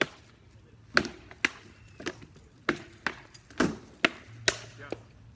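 Rattan swords in SCA armoured combat striking shields and armour: about a dozen sharp wooden knocks in an irregular flurry, roughly two a second, from a run of moulinet blows.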